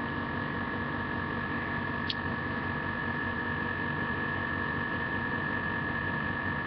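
Steady background hum and hiss with a thin, high electrical whine held at one pitch, and a single faint tick about two seconds in.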